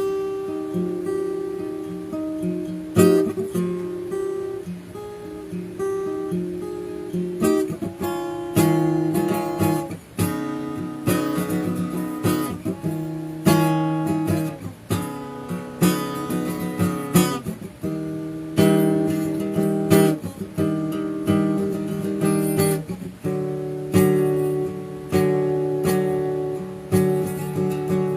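Instrumental guitar music: a guitar strumming chords that change every second or two, with no singing.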